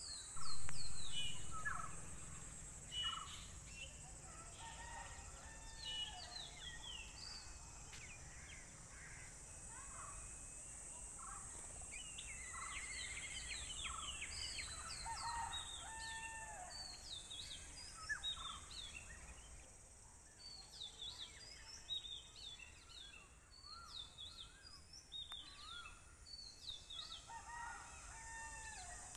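Several songbirds chirping and whistling in short, repeated calls over a steady high-pitched hiss. A loud noise about half a second in fades away over a second or two.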